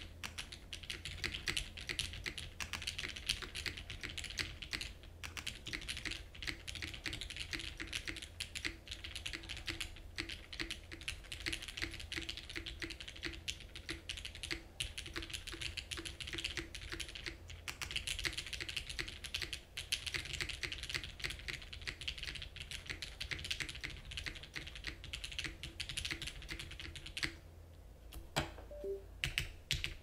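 Continuous fast typing on a Hiney TKL One mechanical keyboard with an aluminium plate, lubed Cherry MX Black linear switches and GMK keycaps: a dense run of keystrokes. Near the end the typing stops for about a second, then a few more keys are pressed.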